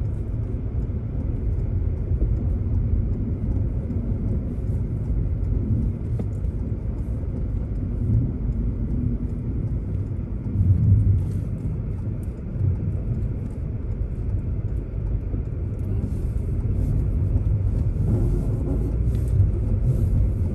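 A car driving along, with a steady low rumble of tyre and road noise; the tyres are very noisy.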